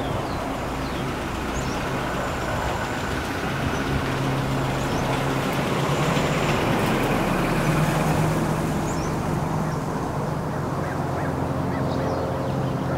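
1986 Toyota pickup's turbocharged 22R-TE four-cylinder running at low speed just after starting, as the truck creeps out; its steady note rises slightly about eight seconds in. Faint bird chirps sound above the engine.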